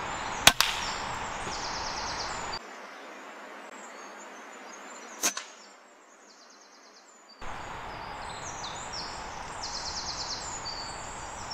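Two sharp cracks of a Weihrauch HW100 .22 pre-charged pneumatic air rifle firing, the louder about half a second in and another about five seconds in, over steady wind noise with high, rapid chirping.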